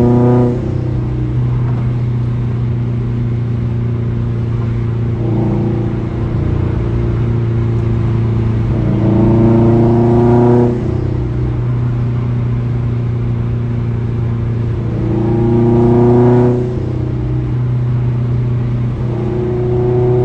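Subaru boxer engine with a Grimmspeed header, idling steadily and blipped up in revs about every five seconds. Each rev holds for a second or two, then drops back to idle.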